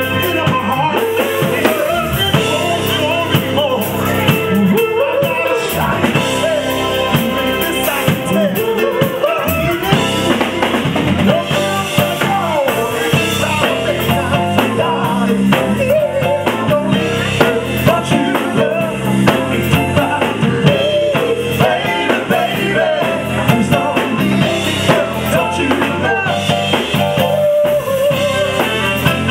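Live soul band playing: a male lead singer over drum kit and electric guitar.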